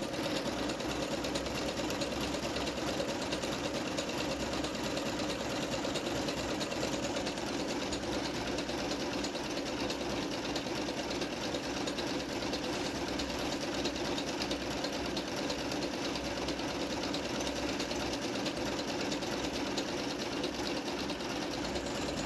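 Singer Mon Ami Nu computerized sewing machine running steadily at speed, its needle stitching a decorative scalloped embroidery pattern into cloth.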